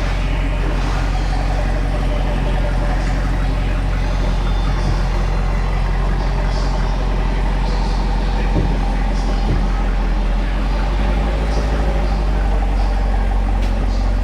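Car engine idling steadily with a deep, even low note and no revving.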